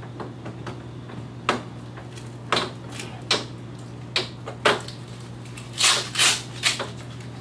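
Paramotor cage hoop sections clicking and knocking against the frame as they are fitted, in scattered sharp taps. About six seconds in come a few short, louder rasping tears, typical of Velcro straps being pulled to fasten the cage.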